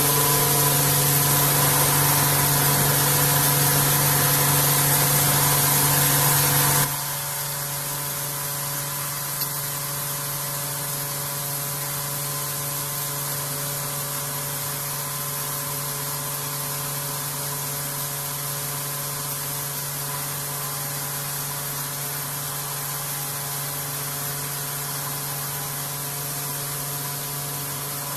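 CNC vertical machining centre face milling aluminium: a loud steady hiss over the machine's hum and several steady tones. About seven seconds in the hiss drops away and the level falls, leaving the steady hum and tones, with one small click a couple of seconds later.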